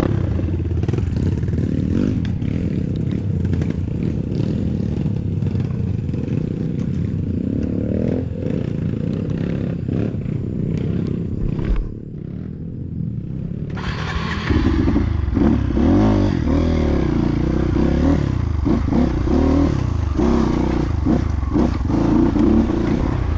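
Trail motorcycle engine running under way, with rattling and clattering over rough ground; the engine drops back about twelve seconds in, then revs up and runs louder, its pitch rising and falling with the throttle.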